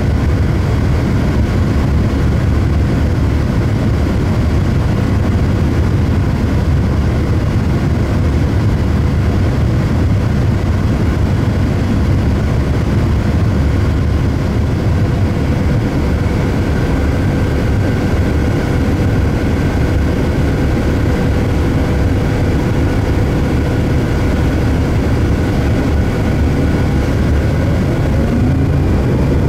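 Orion VII third-generation CNG transit bus idling, heard from on board: a steady low engine rumble with a faint steady whine. Near the end the engine note rises as the bus pulls away.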